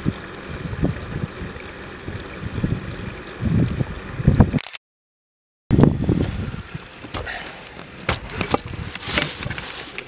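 Gusty low rumble of wind buffeting the microphone outdoors, with no bird calls. The sound cuts out completely for about a second near the middle, then resumes with a few sharp clicks near the end.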